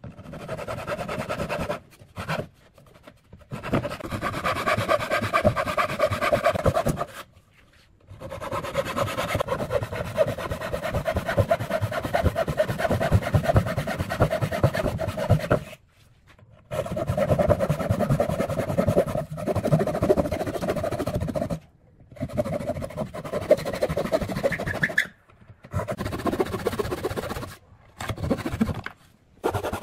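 Fine-toothed hand saw cutting wood in quick back-and-forth strokes, in several runs broken by short pauses as the blade is repositioned.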